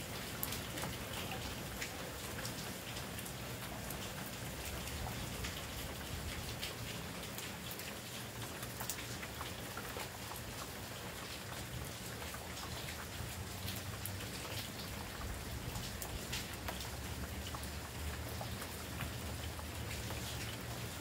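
Steady heavy rain: an even hiss full of small drop ticks, with a low rumble underneath.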